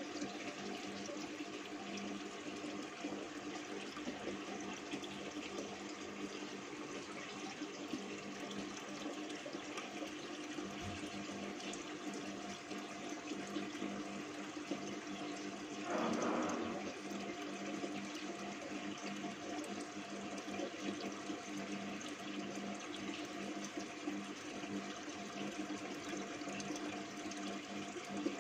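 Aquarium filter and aeration running: a steady rush of moving, bubbling water over a constant low hum, with a brief louder burst about halfway through.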